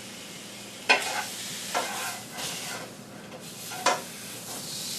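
Liver frying in a pan: a steady sizzle, broken by three short, sharp clicks.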